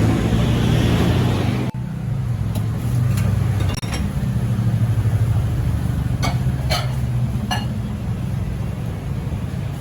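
A steady low hum with about half a dozen light clinks. The sound breaks off abruptly and restarts about two seconds in.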